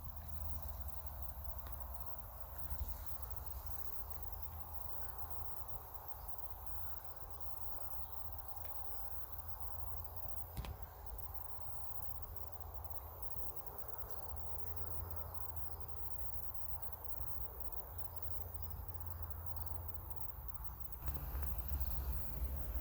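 Quiet countryside ambience: a steady low wind rumble on the microphone with faint insects chirring, getting louder in the last couple of seconds.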